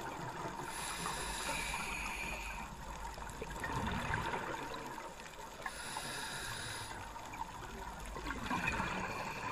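Underwater ambience: a steady, muffled water noise with a low rumble.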